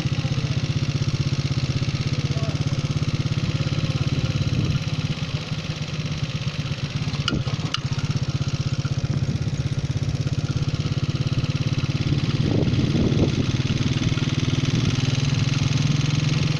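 Small motorcycle engine running steadily as it is ridden at low speed, easing off a little in the middle, with two short clicks about halfway through, then rising briefly and running louder toward the end.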